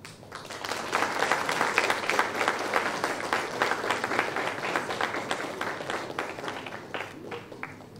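Audience applause, many hands clapping: it swells within the first second and thins out toward the end, with a few last separate claps.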